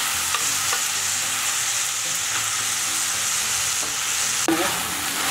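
Green beans, tomato and onion frying in hot oil in a pan: a steady sizzle, with the scrape and light clicks of a spatula stirring them. The sizzle breaks off abruptly for a moment about four and a half seconds in.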